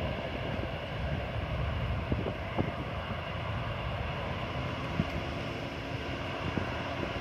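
Distant jet airliner's engines rumbling as it lands on the runway, with wind buffeting the microphone and a few faint knocks.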